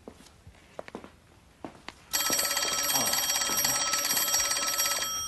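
A telephone's electric bell ringing, one continuous ring of about three seconds that starts about two seconds in and stops shortly before the end. A few soft knocks come before it.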